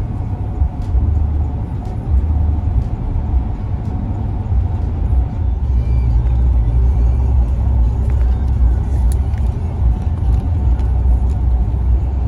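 Steady low rumble of a truck heard from inside its cab.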